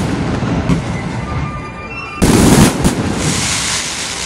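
Fireworks going off, with a loud blast about halfway through followed by a dense crackle of sparks, over the show's music soundtrack.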